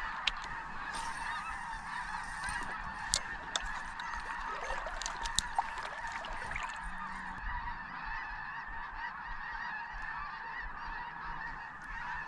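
A huge flock of waterfowl flying over, spooked by gunfire, in a dense unbroken chorus of honking calls, with a few faint sharp clicks.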